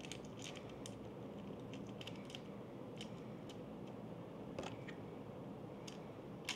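Light clicks and ticks of a camera in a metal rig cage being handled, fingers working small parts on its side, with a steady low hum underneath.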